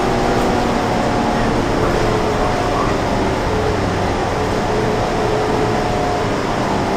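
Cabin noise of a city transit bus under way, heard from a passenger seat: a steady drone of engine and road noise, with a few faint steady tones wavering in and out.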